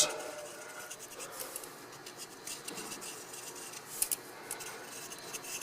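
A marker scratching and rubbing against wheel studs as two of them are marked, with a small click about four seconds in.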